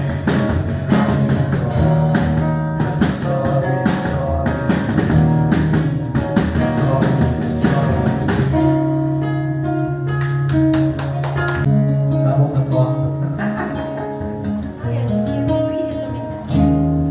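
Live forró band playing an instrumental passage: a steady, quick percussion beat under held, pitched melody notes, with plucked strings.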